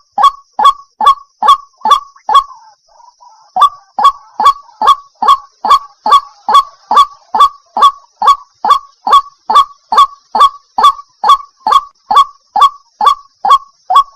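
White-breasted waterhen calling its harsh, repeated 'kru-ak' notes, about two and a half calls a second, with a brief pause about two seconds in before the series runs on without a break. A faint steady high hiss lies behind the calls.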